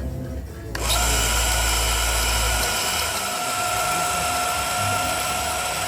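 An electric motor-driven machine starts abruptly about a second in and runs on with a steady high whine over a hiss.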